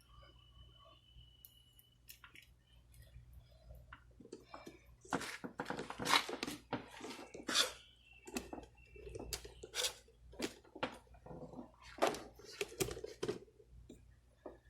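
Hands working on car door parts: irregular clicks, knocks and rubbing, faint at first and busier from about four seconds in.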